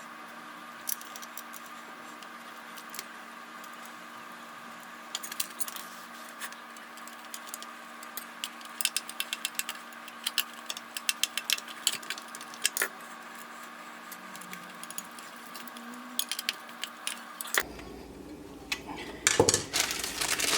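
Small metal parts and tools being handled during the ice-maker auger motor repair: scattered light metallic clicks and jingling, in bunches, over a steady electrical hum. The hum cuts off abruptly about three seconds before the end, and a louder clatter follows.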